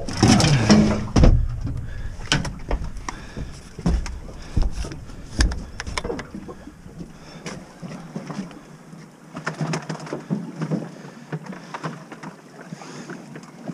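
Knocking and clattering of fishing gear being handled in a boat as a landing net is picked up, loudest in the first second or so, then scattered sharp knocks.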